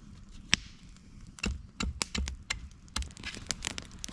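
Axe blade chopping and shaving a wooden stick as it is whittled thinner: a string of sharp, irregular knocks, the loudest about half a second in.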